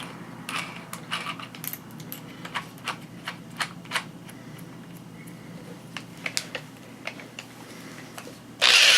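Scattered light metallic clicks and rattles as a drill bit is handled and fitted into a hand drill, then a loud rattling burst of about a second from the drill near the end.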